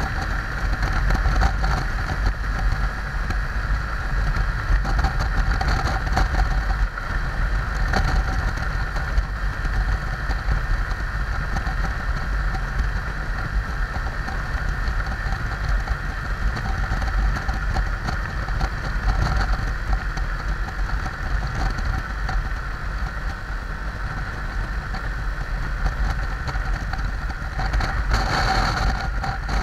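Junak motorcycle riding at steady speed, its engine running under heavy wind rumble on the handlebar camera's microphone. Near the end an oncoming car passes with a brief rush.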